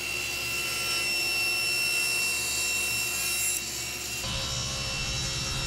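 SawStop cabinet table saw running and ripping a taper along a small walnut leg held in a sled-style tapering jig: a steady blade whine over a motor hum. The sound shifts about four seconds in as the cut changes.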